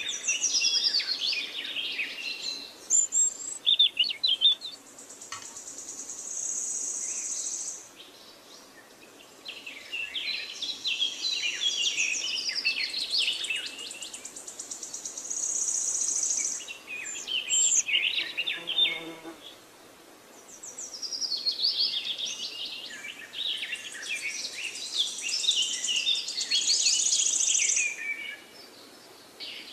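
Songbirds chirping and twittering, with a high steady trill over the calls, in bouts of several seconds broken by short lulls.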